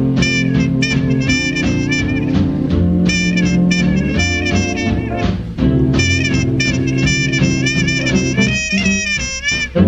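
Background music: an upbeat swing-jazz tune with brass horns and saxophone over a steady beat.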